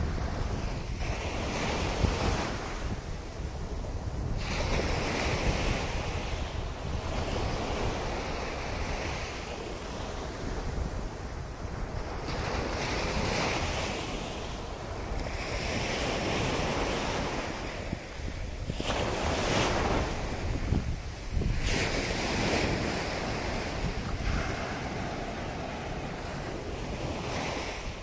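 Ocean surf: waves breaking and washing up the beach, the rush swelling and falling back every few seconds, with wind rumbling on the microphone throughout.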